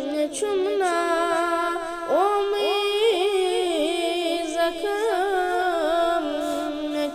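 Male voice singing a Kashmiri naat, a devotional melody with ornamented, bending phrases over a steady held low drone. A few quick rising vocal swoops come a couple of seconds in.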